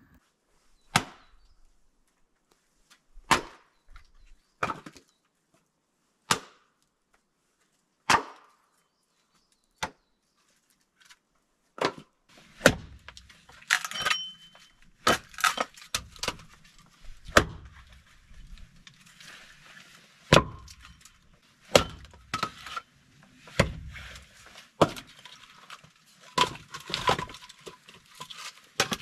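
A series of sharp knocks, at first one every second or two, then from about halfway quicker knocks and clinks of hard objects, with a faint steady hum underneath.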